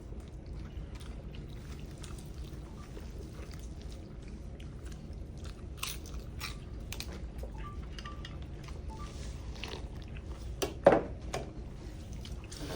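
People chewing and eating chicken curry noodles, with scattered small clicking mouth and utensil sounds and one brief louder sound near the end.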